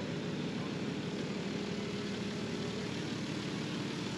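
Steady low engine drone with a faint held tone running through it.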